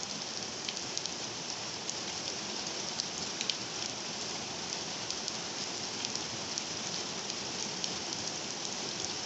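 Heavy rain falling steadily, with scattered sharper ticks of drops landing close by.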